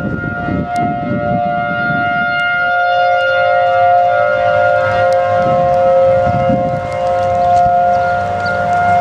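Several civil defense warning sirens sounding together in a siren test, each holding a steady tone. At least two different pitches overlap rather than one siren alone.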